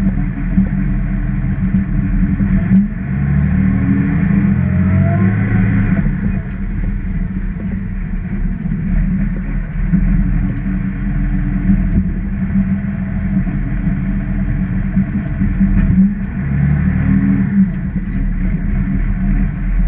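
Bus engine and road noise heard from the driver's cab while driving, a steady low drone with the engine note rising twice as the bus picks up speed, once about three seconds in and again near the end.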